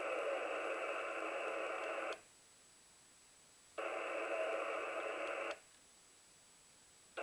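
Shortwave transceiver receiving band noise: an even hiss in the narrow voice passband, with no station audible, that cuts out abruptly twice and comes back each time.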